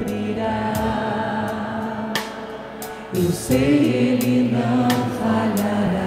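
Music: a slow devotional song with voices singing held notes.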